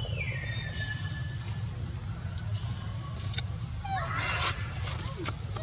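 Monkey calls: a pitched squeal that falls in pitch at the start, then a harsher, noisier screech about four seconds in, over a steady low hum.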